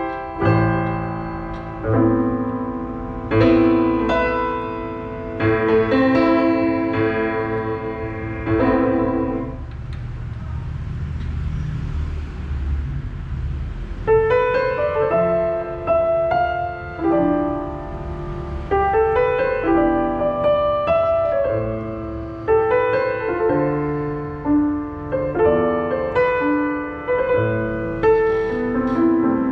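Roland HP508 digital piano playing a piano piece: chords with a melody on top, easing into a softer held passage around the middle before the notes pick up again.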